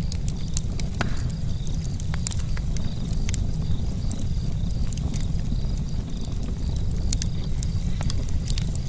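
Charcoal campfire crackling: irregular sharp pops and ticks over a steady low rumble.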